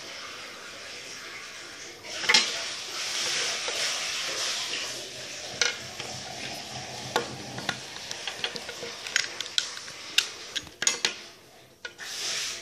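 Small toy train parts, a wheel set and loose rings, clicking and clinking as they are handled and fitted, with rustling handling noise for a few seconds after about two seconds in, then a run of sharp little clicks and taps.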